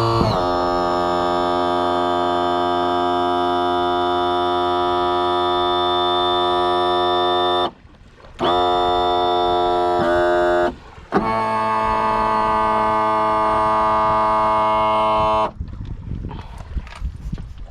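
Electric power-tilt motor of a Yamaha 175 hp outboard running under load with a steady buzzing whine, the noise heard while tilting that is being tracked down. It stops briefly twice, spinning back up after the second stop, then cuts off, leaving faint irregular rattling.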